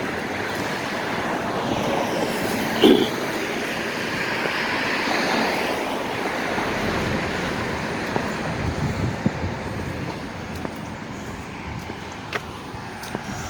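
A car passing by: tyre and road noise swelling over a few seconds and then fading away, with a short sharp sound about three seconds in.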